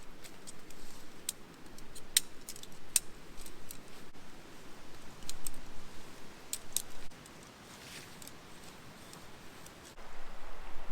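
Camping gear being handled and packed: scattered sharp clicks and light rattles over rustling, dropping to a quieter stretch for a few seconds near the end.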